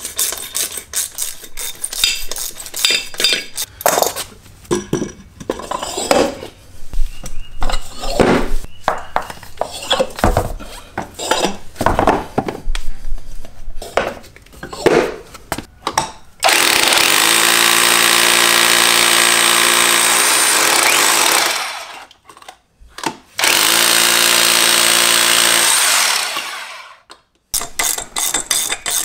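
Irregular clicking and clattering of hardware being handled. Then an electric drill runs steadily twice, first for about five seconds and then for about three, cutting off each time.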